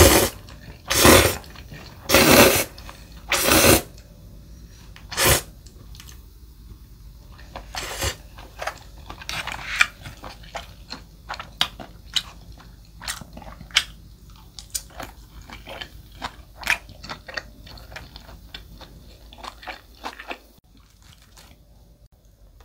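Close-miked eating of chewy jjolmyeon noodles: five loud slurps in the first five seconds or so, then chewing with many short, wet clicks that fade out near the end.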